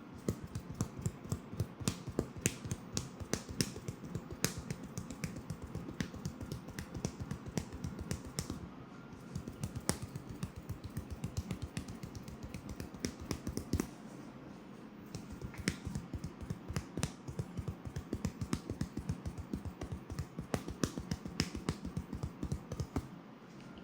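Rapid fingertip tapping on a person's head during an ASMR head massage: many quick, sharp taps a second, with two brief lulls.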